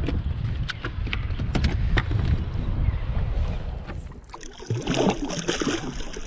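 Wind rumbling on the microphone with a few small clicks, then, after a cut, water splashing at the surface around a hand for about a second.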